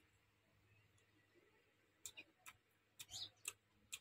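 Faint crunching clicks of a person chewing mango slices, a few soft crunches starting about halfway through after near silence.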